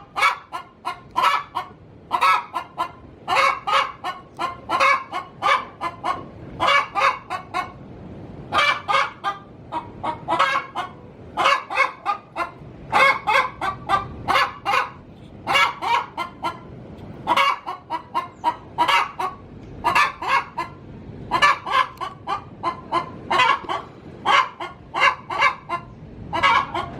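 Domestic hen cackling in repeated runs of quick, loud clucks with short pauses between: the egg song of a hen about to lay.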